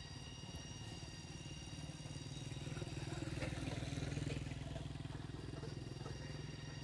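A small engine running with a fast, even pulse, growing louder about three to four seconds in and fading again, like a motorbike passing by.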